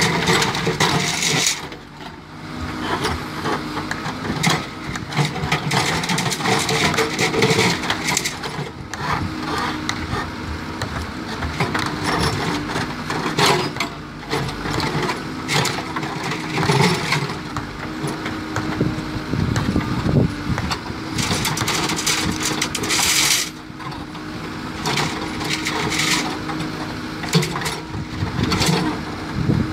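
JCB 3CX backhoe loader's diesel engine running steadily while its backhoe bucket pushes and drags steel rebar, the bars clanking and scraping against each other at irregular intervals.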